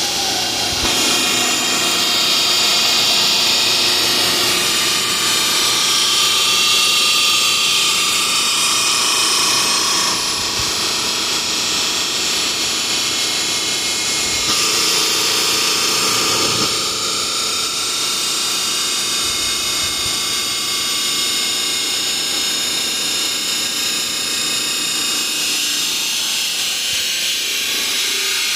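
CNC router running and cutting: a steady, high-pitched spindle whine with a rushing noise that swells and eases as the cut goes on.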